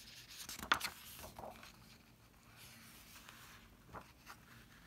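Paper page of a picture book being turned by hand: a sharp rustle about a second in, lighter rustling and rubbing of the paper after it, and a short tick near the end.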